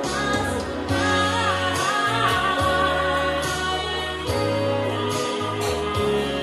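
A woman singing live into a microphone over backing music, amplified through PA speakers, with a steady bass line under the melody.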